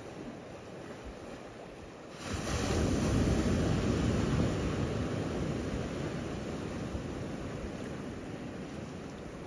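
Small waves washing at the shoreline, a steady rushing that swells about two seconds in and then slowly eases.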